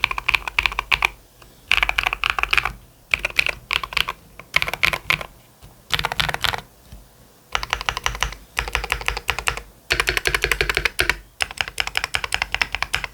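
Typing on a Keychron Q3 Pro SE mechanical keyboard fitted with NEO White linear switches: rapid runs of keystrokes, each run about a second long, broken by short pauses.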